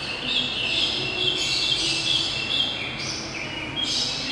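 Many kept birds chirping at once: a dense, overlapping chatter of short, high calls with no pause.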